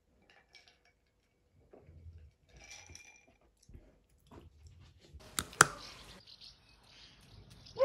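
Someone chewing crispy home-cut fries up close, with soft crunches, then two sharp clinks of a glass a little after five seconds in. After that come outdoor air and small birds chirping, with one louder call at the very end.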